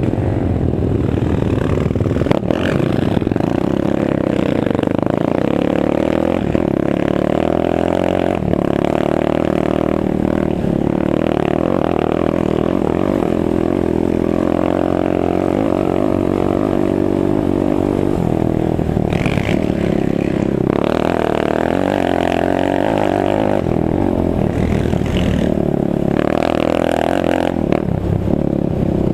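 Suzuki LTR 450 quad's single-cylinder four-stroke engine running hard off-road, its pitch rising and falling as the throttle opens and closes, with a few sharp knocks in the first several seconds.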